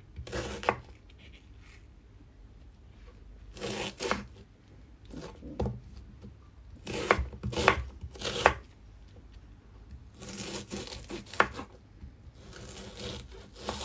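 Kitchen knife cutting an onion on a wooden cutting board: runs of a few sharp knocks of the blade on the board, with short pauses between.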